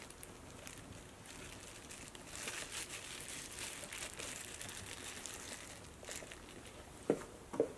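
Thin plastic wrapping crinkling faintly as it is handled, with irregular small crackles.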